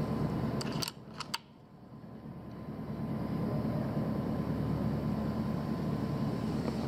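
A quick run of about four sharp metallic clicks, about a second in, from a PCP air rifle's action being cycled to load the next pellet after a shot. Under it runs a steady low rumble.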